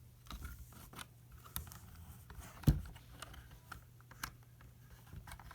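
Plastic LEGO pieces of a puzzle box clicking and clattering as parts are pulled and twisted by hand, with one louder knock a little under three seconds in.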